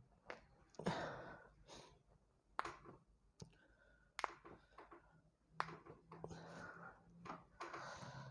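A person sighing, with soft breathy exhalations, one about a second in and a longer one near the end. Three short sharp clicks fall between them.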